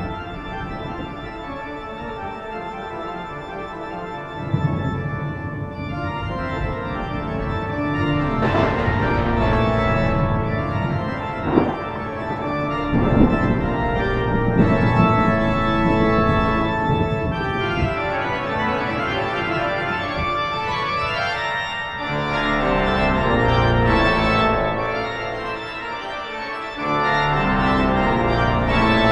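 Organ music playing slow, sustained chords, with a few sudden loud hits around the middle.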